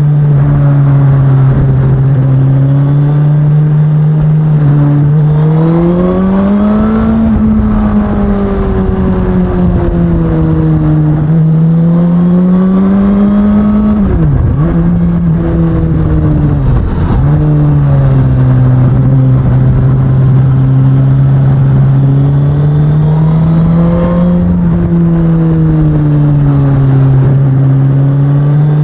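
2019 Suzuki Katana's 999 cc inline-four engine running through its stock exhaust, its pitch rising and falling gently with the throttle, with two brief sharp drops in revs around the middle before it picks up again.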